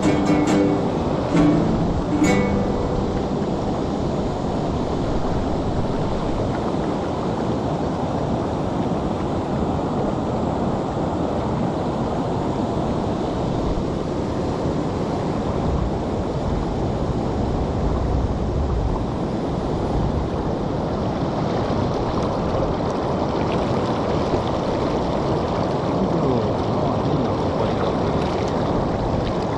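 River water rushing in a steady, even wash. Plucked guitar music plays over it for the first couple of seconds, then stops.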